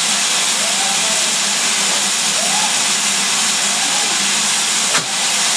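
Steady hiss of steam escaping from GWR King class 4-6-0 locomotive 6023 King Edward II at a stand. A single sharp click comes near the end.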